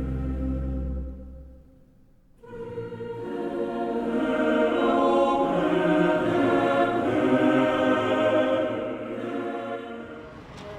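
Choral music with sustained voices. It fades out about two seconds in, then a new passage swells up and fades again near the end.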